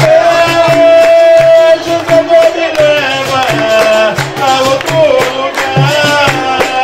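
Capoeira roda music: a voice singing long held, gliding notes over a steady hand-drum beat and plucked instrument.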